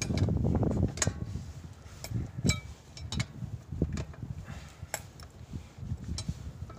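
Metal clinks and taps of lug nuts and a lug wrench on a car wheel's studs as the nuts are turned off by hand, a dozen or so irregular sharp clicks.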